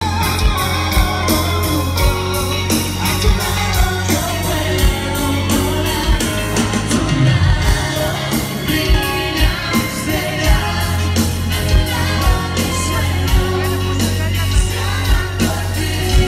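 Live dance band playing loudly, with several voices singing into microphones over a heavy bass line and a steady drum beat.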